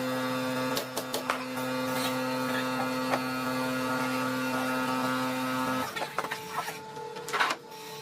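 Electric motor of a woodworking power tool running with a steady hum, with a few knocks over it. It stops about six seconds in.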